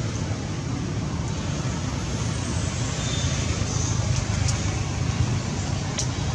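Steady low rumble and hiss of outdoor background noise, with a couple of faint ticks in the second half.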